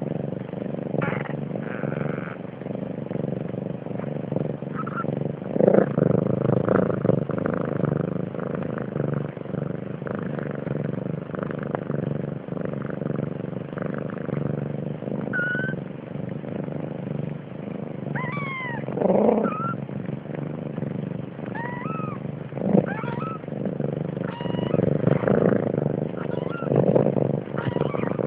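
Cat purring steadily as newborn kittens nurse, with several high, thin kitten mews in the second half.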